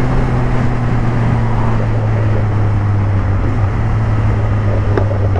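Suzuki GSR 750's inline-four engine running at a steady cruise through an aftermarket Yoshimura-style exhaust, its note holding one pitch, with wind rush over the helmet.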